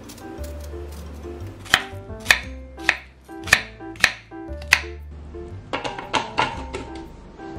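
Kitchen knife cutting a pear into chunks on a wooden cutting board: six sharp chops roughly every half second, then a quick run of lighter knocks as pear pieces drop into a glass blender jar, over background music.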